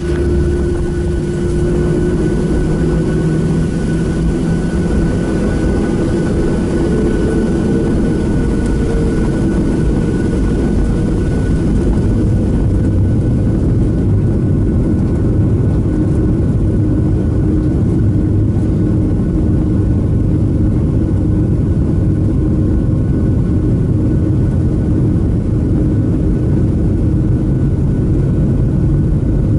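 Boeing 737-700 airliner's CFM56-7B jet engines heard from inside the cabin, running steadily at low thrust while the jet taxis: an even, loud engine noise with a few steady whining tones and no build-up of power.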